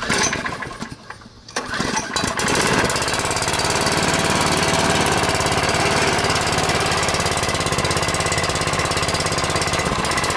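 Tecumseh OHH50 5 hp single-cylinder go-kart engine starting on the second try: a brief first attempt, then cranking that catches about three seconds in. After that the engine runs steadily with a fast, even firing beat.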